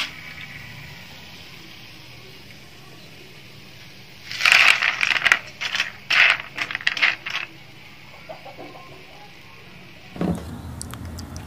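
Fried conch pieces tipped off a metal slotted skimmer onto a plastic plate: a burst of quick clattering taps and scrapes starting about four seconds in and lasting about three seconds.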